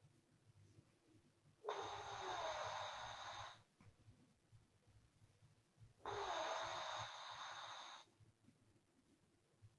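Sleeping woman's breath-out snoring: two long, airy exhales puffed out through the lips, each about two seconds, some four seconds apart, with quiet in between.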